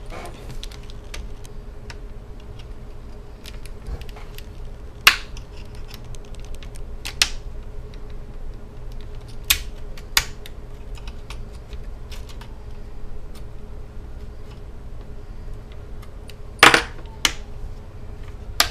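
Plastic retaining clips of a Samsung laptop's screen bezel snapping loose as the bezel is pried off by hand: a scattered series of sharp clicks and snaps a few seconds apart, the loudest and longest near the end, over a faint steady hum.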